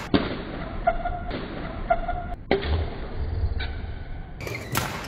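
Badminton rally on court: sharp cracks of rackets striking the shuttlecock, a few seconds apart, with brief squeaks of shoes on the court floor between them.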